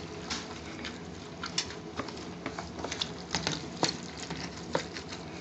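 A gloved hand squishing and mixing wet chopped onion, tomato and herbs in a plastic tub: irregular wet squelches and small clicks.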